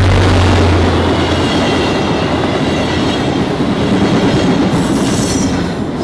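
Passenger train passing at close range: the diesel locomotive's engine hum at first, then the coaches' wheels rushing and clattering over the rails, with a high hiss about five seconds in.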